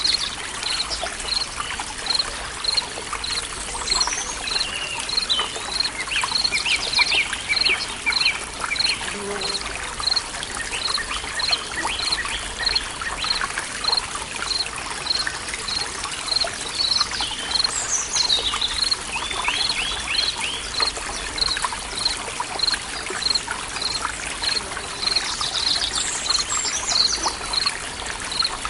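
Forest ambience: a stream trickling steadily, with birds singing. A high note repeats evenly about twice a second throughout, and bursts of trilling birdsong come in now and then.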